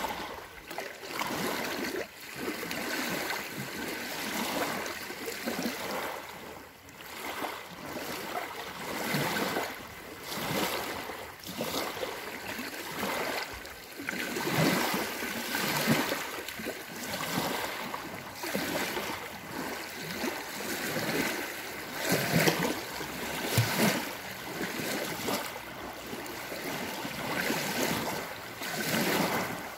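Small lake waves breaking and lapping on a sandy shore, washing in unevenly every second or two.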